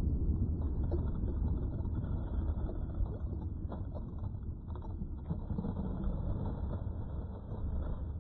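Low, steady rumble of wind buffeting the microphone, with a few faint ticks.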